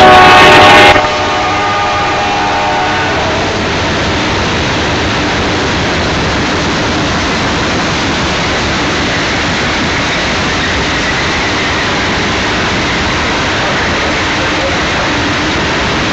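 CSX diesel locomotive horn sounding a chord that drops sharply about a second in and fades out soon after. Then the steady rumble and rattle of a coal train's hopper cars rolling past on the rails.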